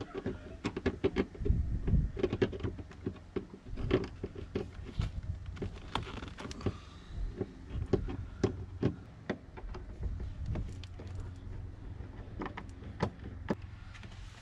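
Irregular sharp clicks and knocks as a Mercedes W205 C-class door trim panel is pried off with a trim tool and lifted free, its retaining clips snapping loose. The clicks come thick in the first half and thin out toward the end.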